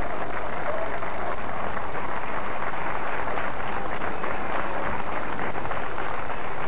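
Audience applauding: many people clapping at a steady level throughout.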